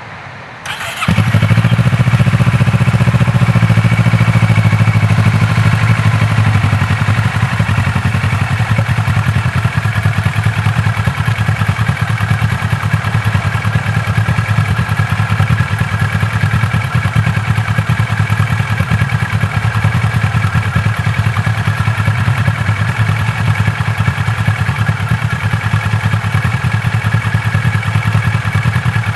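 Kawasaki ER-6n's 649 cc parallel-twin engine, breathing through a full Akrapovic exhaust with dB killer and catalytic converter, starting up about a second in and then idling steadily, a little louder for the first few seconds before settling.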